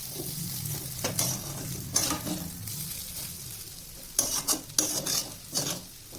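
Chow mein noodles being stirred in a dish, the utensil scraping against it in irregular strokes, over a steady low hum.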